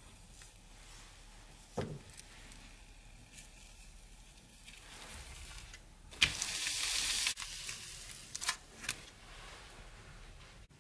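Crepe cooking in a hot nonstick frying pan, sizzling faintly. There is a knock about two seconds in, a loud rushing hiss lasting about a second a little past the middle, and a couple of light clicks after it.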